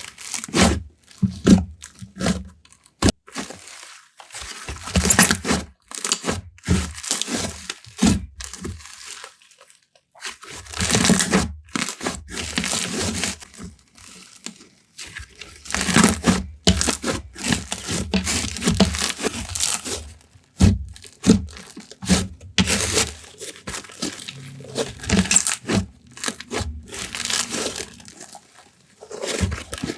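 Hands kneading, stretching and squishing slime, giving irregular bursts of crinkly, crackling sizzle and small clicky pops.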